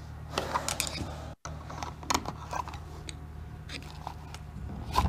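Small sharp clicks and rustles of hands working wires and WAGO lever connectors in a plastic control-box enclosure: a quick cluster about a second in, single clicks around two seconds in and one near the end, over a steady low hum.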